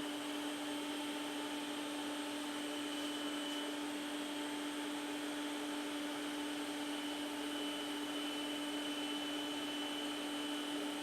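Vintage Compaq Portable 8088 computer running: a steady whir with a constant low hum tone and fainter high whines.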